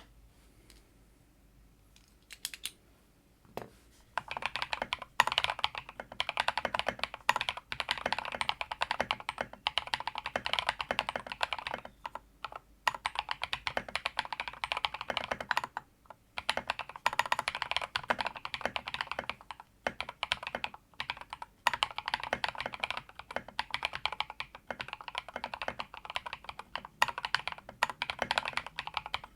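Mechanical keyboard with Zuoce Bubblegum switches being typed on. A few single keystrokes come first, then continuous fast typing from about four seconds in, broken by a few short pauses.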